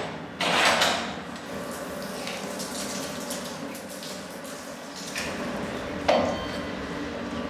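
Wort boiling in an open copper brew kettle, a steady bubbling rush, with a loud short burst of rushing noise about half a second in and two shorter louder bursts around five and six seconds.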